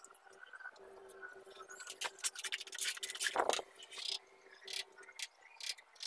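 Mason's trowel scraping and tapping against a metal bucket of mortar: a run of short scrapes and taps, with a louder knock about three and a half seconds in. A faint steady hum runs underneath for most of it.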